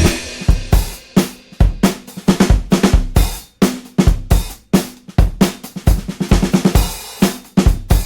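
Rock soundtrack music: a drum kit playing alone, with kick drum, snare, hi-hat and cymbal hits in a steady beat, the guitars having dropped out at the start.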